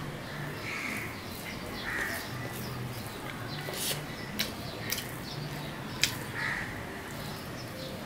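Hand-eating sounds: fingers mixing rice and curry on a steel plate and chewing, with a few sharp clicks. A bird calls several times in the background.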